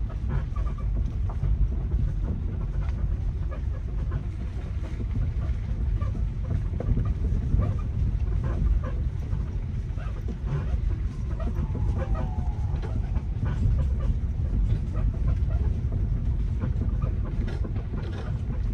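Car moving slowly over a rough unpaved track: a steady low rumble with frequent scattered knocks and rattles, and a short falling squeak about twelve seconds in.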